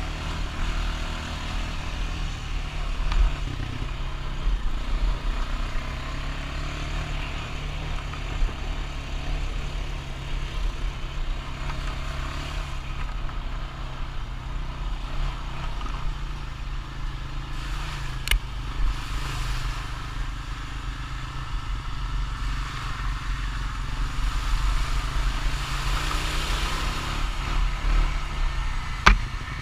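Honda Rancher ATV engine running steadily as the quad rides along, with two sharp knocks, one a little past halfway and one near the end.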